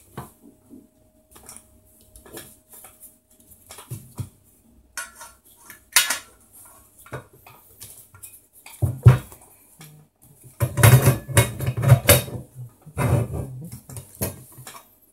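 Steel TV wall-mount parts and fittings clinking and clattering as they are handled. Scattered knocks give way to a louder, denser clatter of metal in the second half.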